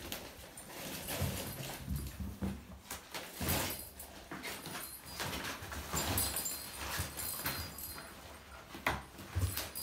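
Kittens playing: irregular thumps and taps of paws scampering and pouncing on a hard floor, with rustling and scratching from the fabric play tunnel and cardboard scratcher.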